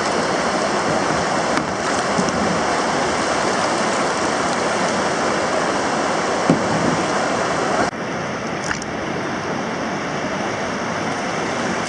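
Rushing whitewater pouring over a river weir, a steady loud roar from the river in high flow. About eight seconds in it changes abruptly to slightly quieter rushing river current.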